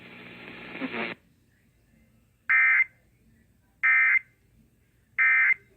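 Emergency Alert System end-of-message signal: three short, identical bursts of high-pitched digital data warble, about a second and a half apart, marking the end of the warning broadcast. They follow about a second of hiss.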